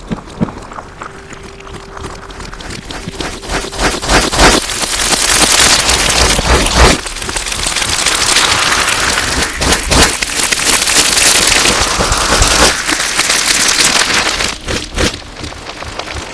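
Slime worked close to the microphone: dense wet crackling and popping, distorted. It grows louder about four seconds in and eases off near the end.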